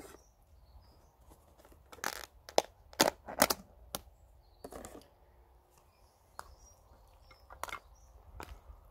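Sharp clicks and knocks, several between about two and three and a half seconds in and a few more near the end, from a plastic food tub being handled and pasta salad being spooned out of it onto metal plates.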